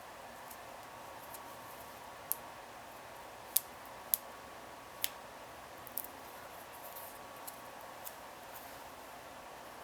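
Paper-craft handling: a handful of short, sharp clicks and taps at irregular spacing as small paper pieces and craft tools are handled on the work surface, over a faint steady hum.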